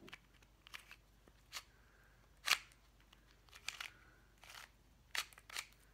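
Stickerless Square-1 puzzle being turned by hand: a few scattered plastic clicks as its layers snap round, the loudest about two and a half seconds in and several close together near the end.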